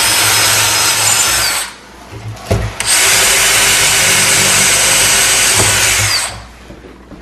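DeWalt cordless drill running at speed as its bit bores through a cabinet door, guided by a hardware-drilling jig. Two drilling runs: the first stops just under two seconds in, then a short knock, and the second runs about three and a half seconds before stopping.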